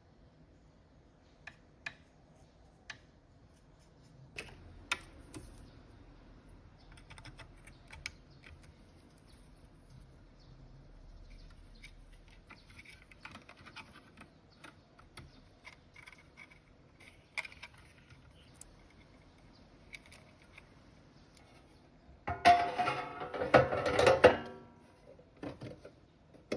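Scattered small clicks and taps of hardware being handled, then a louder clattering rattle lasting about two seconds near the end.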